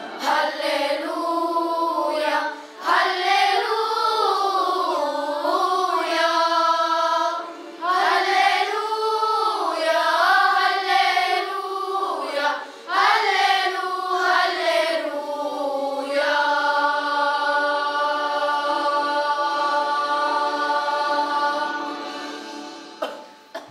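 A children's choir singing a song in several phrases, ending on one long held note that fades away near the end.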